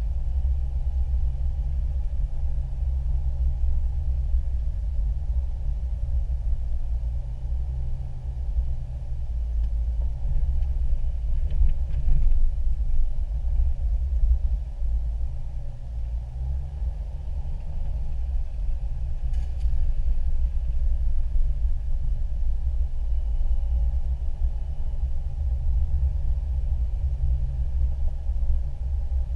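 Steady low rumble of a 4x4 driving slowly along a sandy dirt trail, heard from inside the cab, with a few faint clicks and knocks as it rolls over the bumps.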